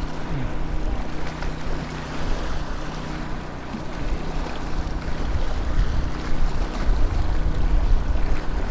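Waves washing and splashing against jetty rocks, with wind buffeting the microphone and a steady low hum underneath.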